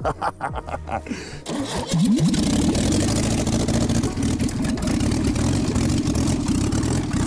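A Lada's carbureted four-cylinder engine, its flywheel deliberately unbalanced with a bolted-on weight, is cranked by the starter for about a second and a half. It catches about two seconds in, rises in pitch and then keeps running.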